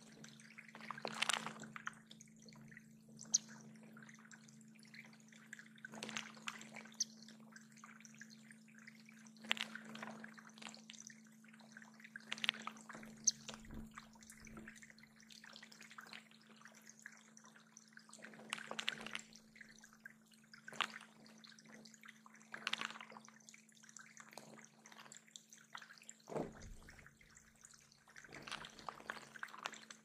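Water dripping and splashing in a backyard bird pond, in irregular splashes every few seconds, over a steady low hum.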